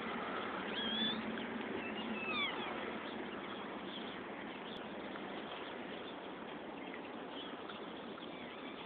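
Newborn puppy giving a few thin, high-pitched squeals in the first few seconds, over a steady background hiss.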